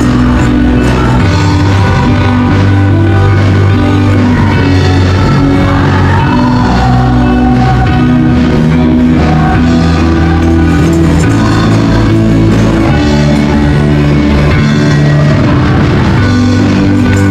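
Live praise-and-worship band playing loudly and steadily, with bass, drum kit and electric guitar under group singing, and hand tambourines shaken along.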